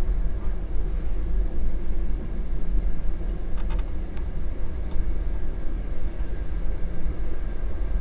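Low rumbling background of storm wind buffeting the shed, rising and falling a little, with a few faint clicks a little before the middle.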